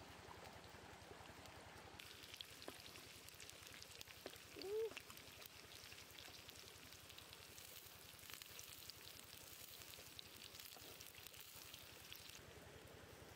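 Faint sizzling and crackling of oil in a pan of frying carrot sticks and shrimp. It starts about two seconds in and stops near the end. About a third of the way through, a brief squeak that rises then falls is the loudest sound.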